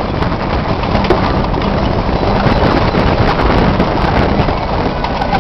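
A vehicle driving a rough mountain road: a steady engine drone, scattered knocks and rattles, and wind noise on the microphone.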